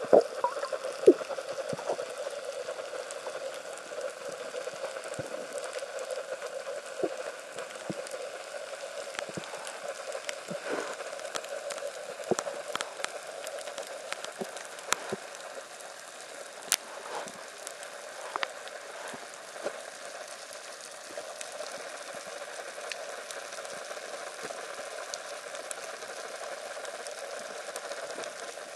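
Underwater ambience picked up by a submerged camera: a steady hiss with scattered sharp clicks and crackles, the loudest pair of clicks in the first second or so.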